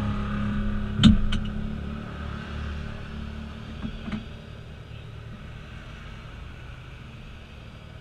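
ATV engine running and fading steadily as it moves off, with two sharp knocks about a second in and a couple of fainter ones a few seconds later.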